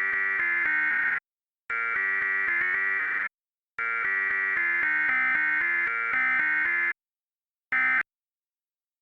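Synthesized imitation of an Emergency Alert System attention tone: a harsh, piercing alarm tone sounding in three long bursts, then a short blip near the end. Beneath it, lower notes step up and down like a melody, and an even ticking runs through each burst.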